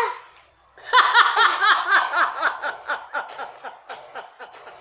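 Laughter: a long run of quick, high-pitched laughs that starts about a second in and tapers off toward the end.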